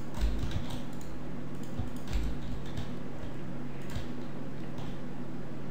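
Computer keyboard keystrokes and mouse clicks, a few scattered taps with a couple of low thumps, about a quarter of a second and two seconds in, over a steady low hum.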